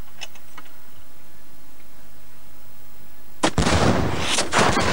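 A muzzle-loading field cannon fires about three and a half seconds in: a sudden loud blast, followed by a dense run of further sharp cracks and bangs. Before it, only a few faint clicks.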